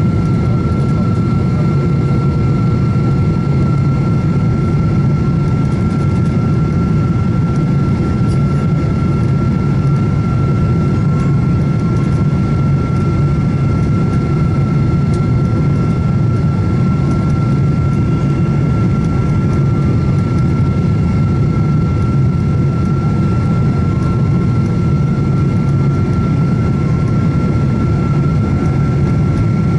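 Steady interior cabin noise of a Boeing 777-200ER airliner: a constant low rumble of jet engines and airflow with an unchanging high whine over it.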